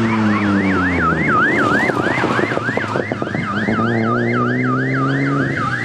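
A rally car's engine comes off the throttle with its note falling, holds a steady low note, then revs up sharply near the end. Over it an electronic siren wails in a fast up-and-down warble, about four times a second.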